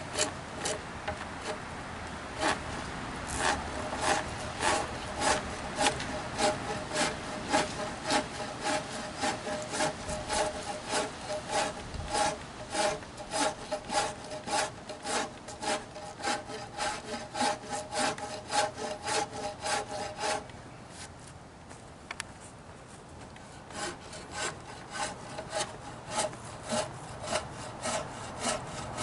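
Hand wood rasp, used on its flat side, filing out a notch in a pressure-treated yellow pine beam: quick, even rasping strokes, about two to three a second. The strokes stop about twenty seconds in, and similar strokes start again a few seconds later.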